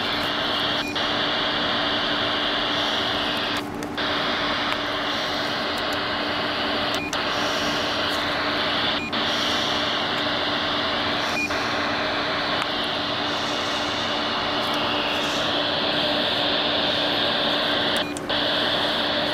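Steady hiss from the Stryker SR-89MC radio's speaker. It is broken about six times by short button beeps as the microphone-head keys are pressed to step through the menu settings.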